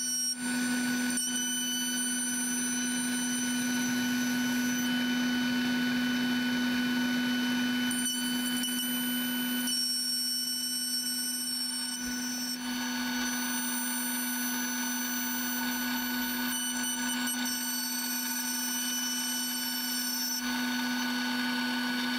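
CNC router spindle running with a steady high whine while it machines wood, with the dust collector drawing air and chips through the brush dust shoe.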